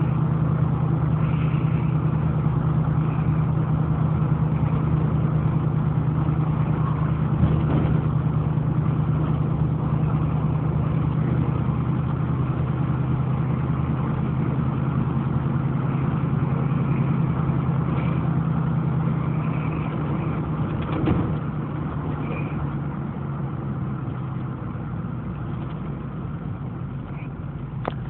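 A steady low mechanical hum, like an engine or motor running, over a constant noise bed. A short sharp sound comes about 21 seconds in.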